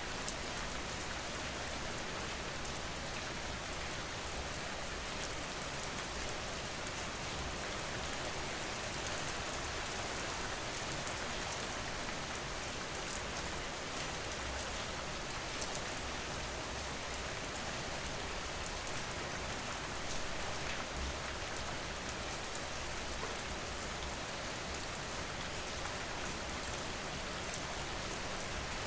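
Steady rain falling on a surface, a dense even patter of many drops with no let-up.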